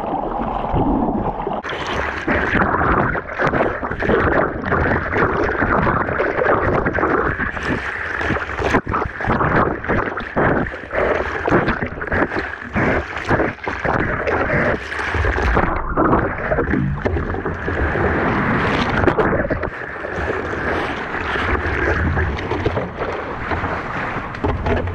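Seawater sloshing and splashing around a surfboard as a surfer paddles, with repeated splashes from the strokes, heard close up at the water's surface.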